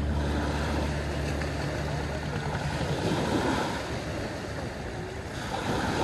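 Small waves breaking and washing up onto a sandy beach, the surf swelling and receding, as background music fades out in the first second.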